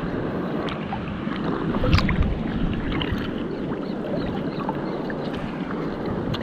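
Steady rush of sea water and wind at the shoreline, swelling briefly about two seconds in, with a few faint clicks.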